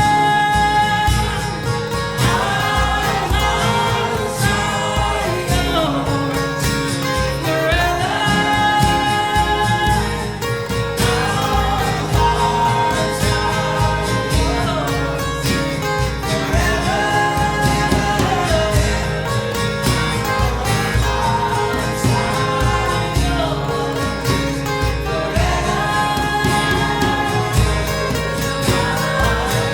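Worship music: a voice singing long held phrases over guitar, with a steady low beat underneath.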